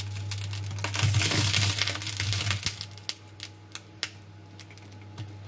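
A pan of orange juice and soy sauce sauce heating on a glass-top electric hob, nearly at the boil: a steady low hum with crackling about a second in, then scattered light ticks.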